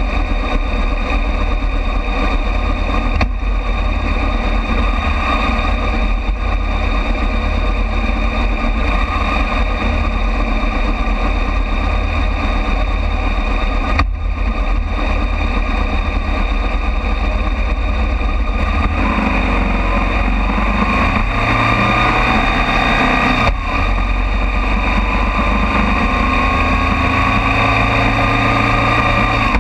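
A Harley-Davidson V-twin motorcycle engine running at road speed, with heavy wind rumble on a fork-mounted microphone. In the last third the engine note rises in pitch twice as the bike accelerates.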